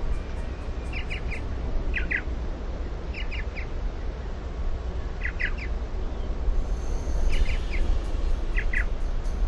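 A bird calling over and over, each call a quick group of two or three sharp notes, every second or two, over a steady low rumble.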